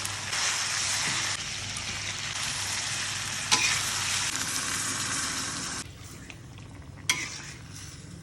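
Food sizzling as it fries in a pan, with a sharp clink about three and a half seconds in and another near the end. The sizzle drops to a quieter level about six seconds in.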